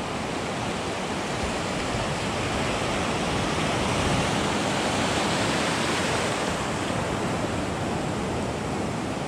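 Ocean surf: breaking waves and foamy wash rushing over shallow sand, a steady rush that swells a little around the middle.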